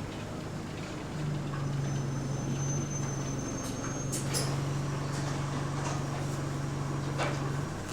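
Inside a service bus on the move: a steady low drone of the running bus, with a few sharp rattles and knocks. A low hum comes in about a second in and drops away near the end.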